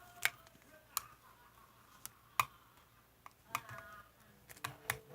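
Marbled slime being squished and pressed by hand, giving irregular sharp clicking pops, with several close together near the end.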